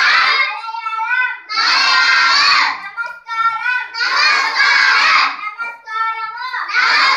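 A class of young schoolchildren reciting Malayalam phrases as call and response: one child's voice says each phrase and the whole class shouts it back in unison, about every two and a half seconds.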